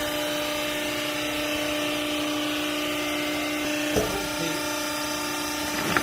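Hydraulic power unit of a vertical clothing baler running with a steady whine, with a knock about two-thirds of the way in and another near the end.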